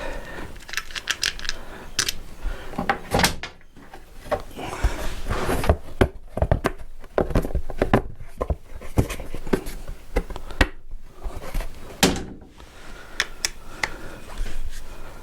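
Scattered clicks, clinks and knocks of small metal engine parts, screws and hand tools being handled on a workbench while an engine is taken apart.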